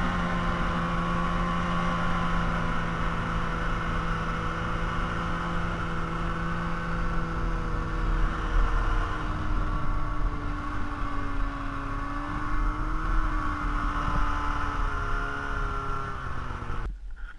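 Snowmobile engine running steadily under way, over a constant rush of noise; its pitch eases down a little partway through and the sound cuts off suddenly near the end.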